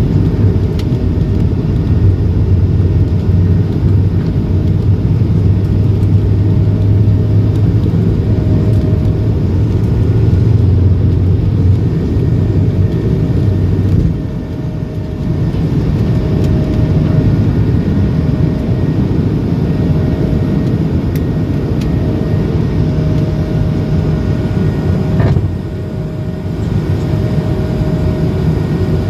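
Airbus A220-300 jet engines and airflow giving a loud, steady rumble, with a faint tone pulsing on and off above it; the rumble briefly drops in loudness twice.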